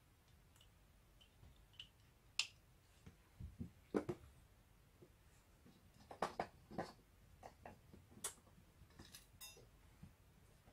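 Scattered faint clicks and light knocks of a VCR video head drum assembly being handled, with a small screwdriver working on its screws. The loudest knocks come about 2.5, 4, 6 and 8 seconds in.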